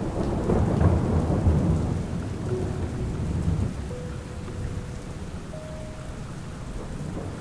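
A roll of thunder rumbling over steady rain, the rumble dying away after about three seconds and leaving the rain.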